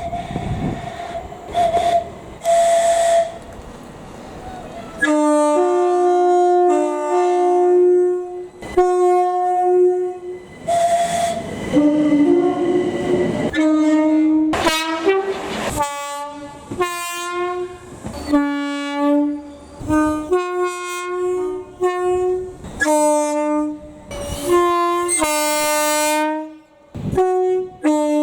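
Train's two-tone horn sounded as a long rapid run of short blasts, switching back and forth between a high note and a low note in a tune-like sequence. A few short high horn notes over rumbling train noise come first.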